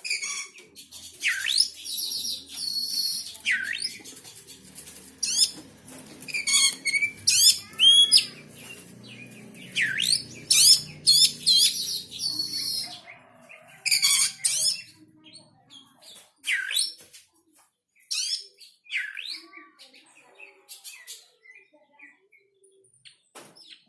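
A small songbird chirping and singing in quick bursts of high, sweeping notes and short trills, busiest in the first half and thinning out near the end.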